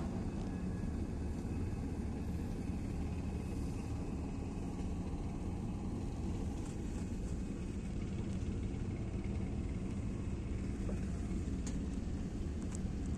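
Steady low engine rumble of a vehicle, heard from inside its cab.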